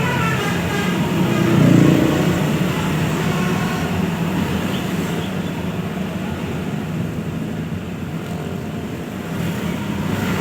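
Bus engine running with roadside traffic noise. It swells about two seconds in, then runs steadily. The last notes of a melodic basuri bus horn fade out at the very start.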